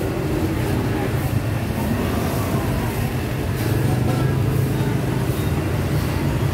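Steady low rumble of market background noise, with indistinct voices mixed in.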